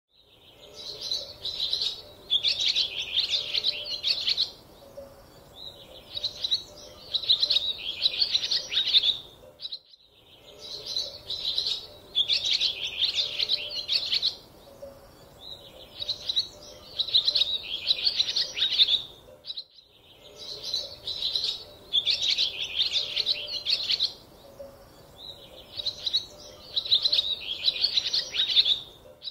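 Small songbirds chirping and twittering in quick bursts of a few seconds each, high-pitched. The same stretch of birdsong repeats about every ten seconds with a brief gap between repeats.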